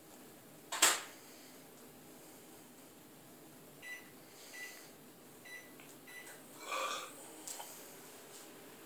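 A sharp knock about a second in, then four short high electronic beeps spaced roughly half a second to a second apart, and a brief breathy sound near the end.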